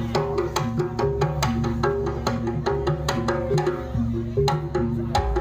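Javanese jaranan gamelan music: an even, brisk beat of sharp percussion strokes, about four a second, over ringing pitched tones.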